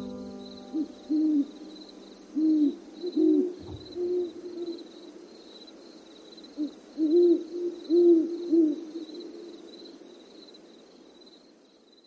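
Owl hooting: a run of low hoots in irregular groups, loudest in pairs about seven to eight seconds in. A faint high chirping repeats about twice a second beneath it, and the sound fades out toward the end.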